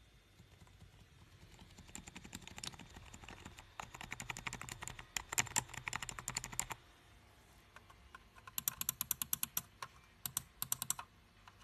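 Typing on a faux-mechanical membrane computer keyboard: a run of quick key clicks in the first half, a short pause, then a second, more even run of fast keystrokes near the end.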